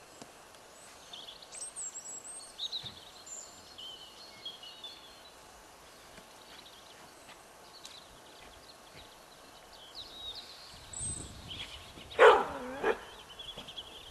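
Collie barking twice in quick succession about twelve seconds in, half a second apart, and again right at the end. Before that, small birds chirp faintly over quiet outdoor ambience.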